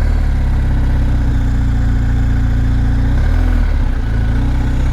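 BMW R 1250 GS Adventure's boxer twin engine idling steadily, with a brief rise and fall in pitch about three seconds in.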